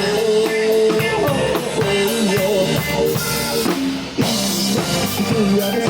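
Live rock band playing an instrumental passage: drum kit, bass and guitar under a melodic lead line. The band drops back for a moment about four seconds in, then comes back in on a hit.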